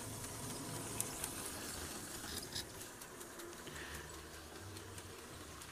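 Vintage LEGO 12-volt train from set 7725 running round its track, its 12-volt motor giving a faint steady hum with light, irregular clicking.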